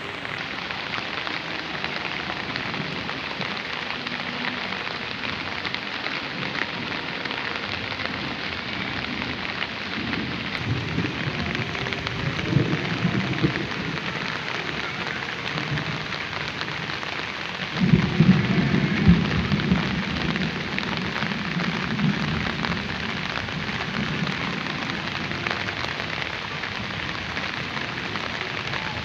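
Rain falling steadily, an even hiss throughout. Low rumbling rises about ten seconds in, and a louder rumble sets in suddenly about eighteen seconds in, then fades over several seconds.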